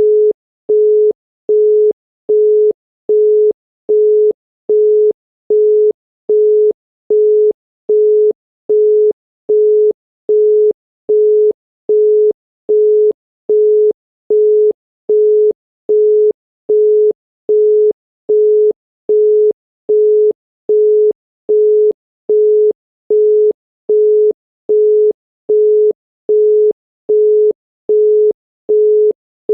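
Russian telephone busy tone: a single steady 425 Hz tone beeping 0.4 s on and 0.4 s off in an even, unbroken rhythm. It is the signal that the called line is busy.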